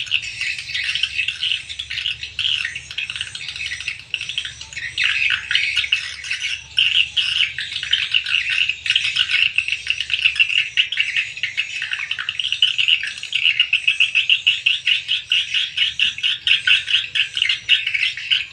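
Edible-nest swiftlet calls: dense, rapid chirping trills. A low hum underneath stops about ten seconds in.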